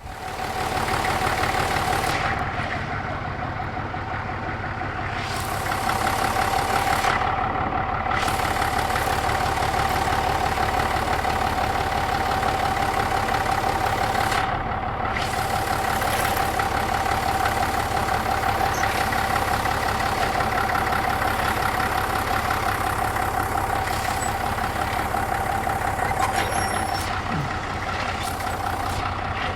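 Farm tractor engine running steadily, with a steady whine above the engine note.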